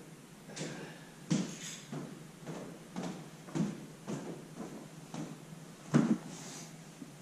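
A run of knocks and clatter, roughly two a second, the loudest about a second in and near the end.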